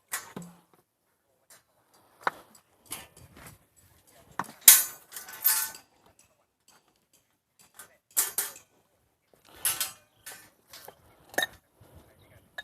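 Scattered knocks, clinks and brief rustles of things being handled, with the loudest rustling burst just under halfway through.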